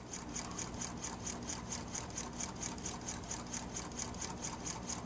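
Low-temperature-difference Stirling engine running fast, about 263 RPM, with a rhythmic swishing tick from its moving parts repeating about four or five times a second over a faint steady hum. Its heat collector is chilled with dry ice, so the engine runs backwards.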